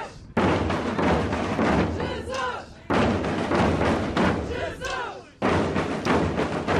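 Group of Portuguese traditional bass drums (bombos) and snare drums (caixas) playing a rhythm together in short phrases about two and a half seconds long. Each phrase ends in a group shout, and the drums come back in sharply together.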